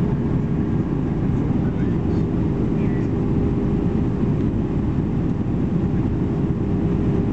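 Steady cabin noise inside an Airbus A320-214 descending on approach: an even rumble of airflow and its CFM56 jet engines, with a faint steady hum above it.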